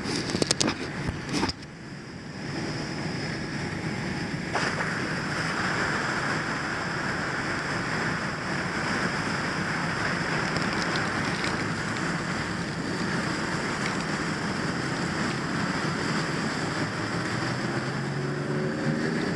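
Fire hose stream spraying steadily from a nozzle, a rushing hiss that comes on about four and a half seconds in, after a few knocks and clicks from handling at the start.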